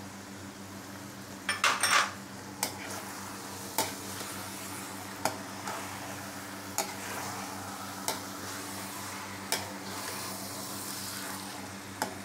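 A perforated metal spatula scraping and clacking against a kadai as a thick paneer and capsicum masala is stirred, about one knock every second or so, with a cluster of clatters about two seconds in. Under it, the masala sizzles steadily as it fries.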